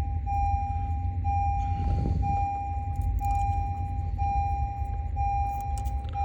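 Electronic warning chime from the car, a steady tone repeating about once a second with a short gap between long beeps, over a constant low rumble.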